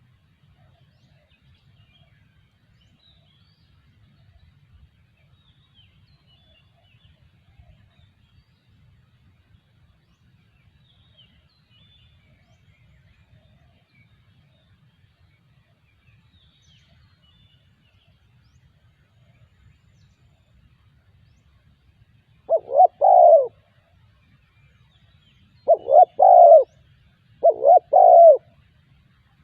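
Spotted dove cooing: three short coo phrases in quick succession in the last seven seconds, after a long stretch of faint low background noise.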